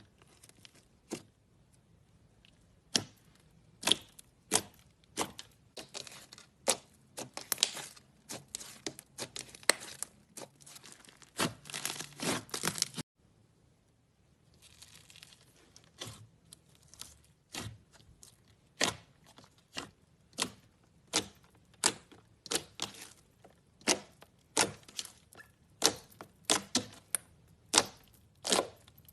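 Crunchy slime being squeezed and pressed by hand, giving sharp crackles and pops. A dense run of crackling about twelve seconds in stops abruptly. After a short quiet gap the pops return, spaced at about one to two a second.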